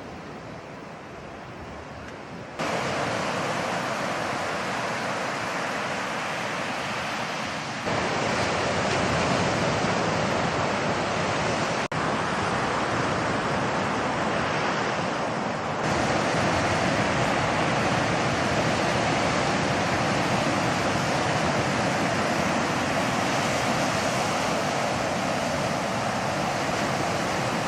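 Ocean surf breaking on a beach: a steady rush of waves whose level steps up abruptly about three, eight and sixteen seconds in.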